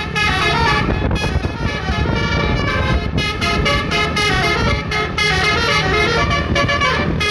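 A Basuri-type telolet bus horn playing a quick tune of stepping notes over a low engine rumble.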